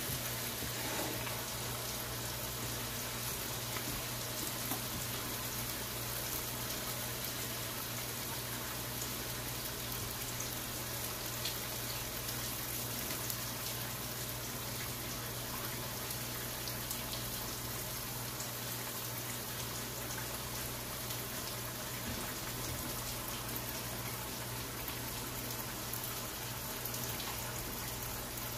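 Salmon croquettes frying in hot grease in a skillet: a steady sizzle with fine crackling.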